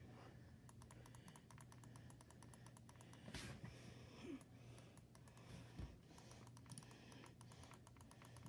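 Faint, rapid clicking of the extra buttons on a Logitech G502 Hero gaming mouse, pressed over and over in quick runs.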